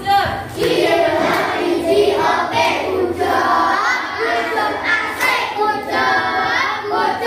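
A small group of children singing a song together.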